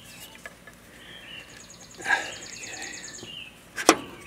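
Steel wrench working the blade bolt on a riding mower deck's spindle, with light metal scraping and ticking and one sharp metal clank about four seconds in.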